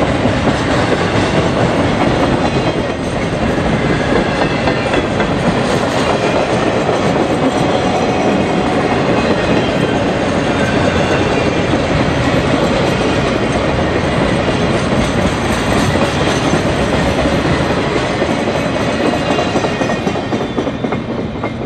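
Norfolk Southern Triple Crown RoadRailer train rolling past at close range, the steel wheels of its trailers' rail bogies making a loud, steady noise on the rails that fades near the end as the tail of the train goes by.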